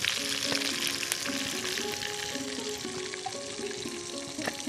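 Small whole fish sizzling as they fry in hot oil in a wok. Background music with a melody plays under the sizzle.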